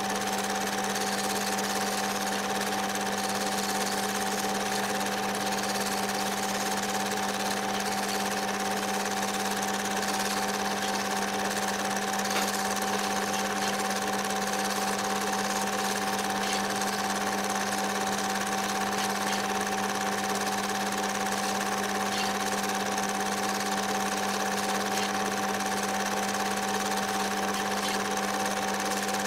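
Film projector running with a steady mechanical whirr and a constant hum.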